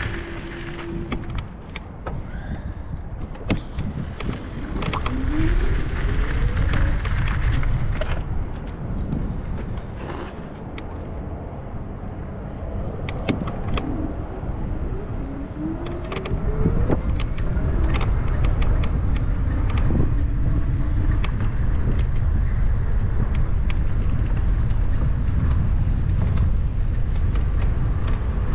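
Bicycle ride noise: wind on the action camera's microphone and the rumble of tyres rolling over paving, with scattered clicks and rattles. The rumble is lighter through the first half and grows louder and steadier from about sixteen seconds in. Two short rising tones sound, one about five seconds in and one about fifteen seconds in.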